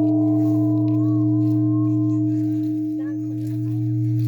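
Large bronze Korean Buddhist temple bell (beomjong) ringing on after a strike of the evening bell, a deep hum under several steady higher tones. The hum swells and fades in a slow pulse, dipping about three seconds in and swelling back.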